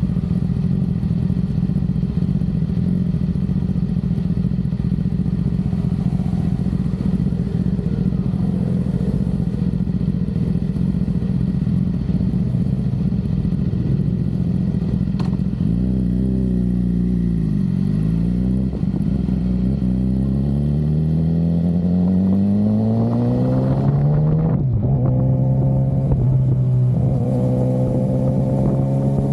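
BMW S1000RR inline-four engine idling steadily, then, about halfway through, pulling away and accelerating. Its pitch climbs through the gears and drops back at each shift.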